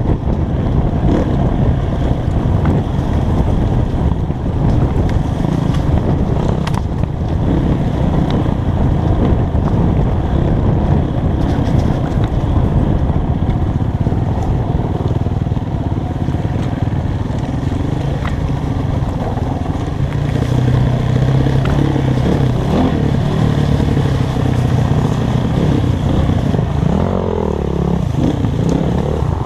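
Dirt bike engine running continuously on a trail ride, the throttle opening and closing. About twenty seconds in it holds a steadier note for a few seconds, then rises and falls in pitch near the end.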